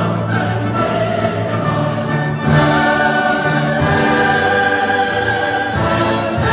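Dramatic orchestral music with a choir singing sustained notes, punctuated by a few heavy percussion hits, one about two and a half seconds in and another near the end.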